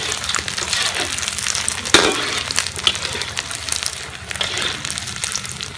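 Battered pieces crackling and sizzling in hot oil in a steel wok during their second frying, as a metal skimmer stirs them and knocks against the wok. There is a sharp clink about two seconds in.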